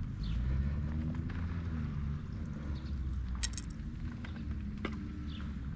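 An engine running, its pitch rising and falling several times, with a few brief high chirps and a sharp click about three and a half seconds in.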